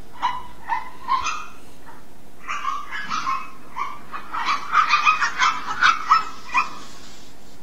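Small dogs, pugs, barking: a few separate barks in the first second or so, then a quick, dense run of barks from about two and a half seconds in until near the end.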